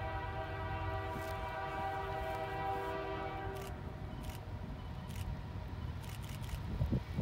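Distant horn of a GE C44-9W diesel freight locomotive: one long blast, a chord of several notes held steady, that cuts off about three and a half seconds in. A low rumble runs underneath throughout.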